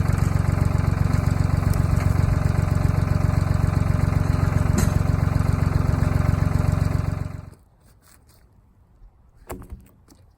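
The small engine of a Wood-Mizer LT10 band sawmill running steadily, then stopping fairly suddenly about seven seconds in, leaving a quiet stretch with a couple of light knocks near the end.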